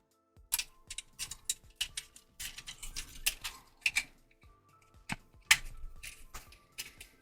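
Irregular plastic clicks and snaps of a Transformers Legacy Crankcase action figure being transformed by hand, as its joints ratchet and parts tab into place, over faint background music.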